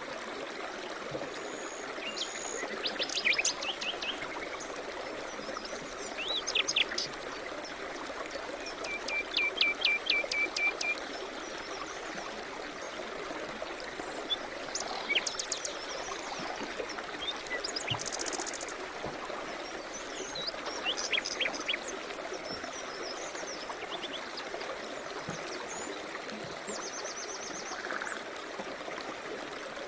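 A stream running steadily, with songbirds chirping and giving short rapid trills over it every few seconds.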